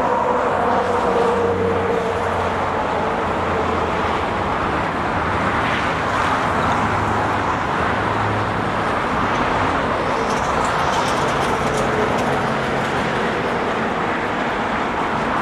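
Steady freeway traffic noise: a continuous wash of passing cars and trucks with low engine drone, holding level throughout.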